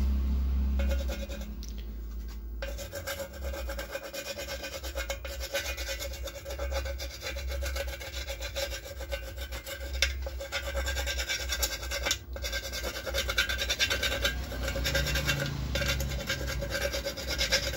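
Rapid, scratchy rubbing of adhesive being spread around the plastic rim of a speaker frame, starting a couple of seconds in.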